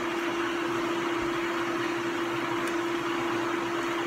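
An old dishwasher running: a steady hum with one constant tone over an even wash of noise.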